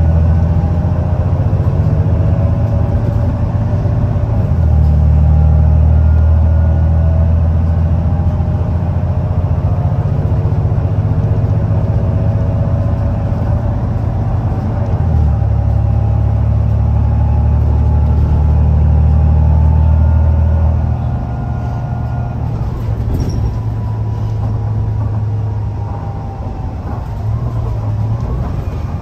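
Volvo B9TL double-decker bus's six-cylinder diesel engine heard from inside the cabin, pulling with a deep, steady drone and a fainter whine that rises and falls. About twenty seconds in the drone drops away as the engine eases off, and a short click follows soon after.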